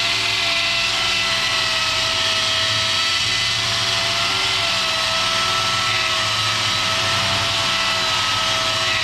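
Electric grinder fitted with a felt polishing wheel running steadily at constant speed while buffing a stainless steel exhaust pipe, with a steady high whine.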